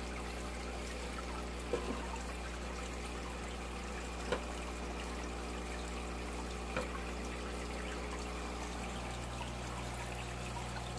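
Aquarium water trickling steadily from tank filtration over a constant low hum, with three faint taps a couple of seconds apart.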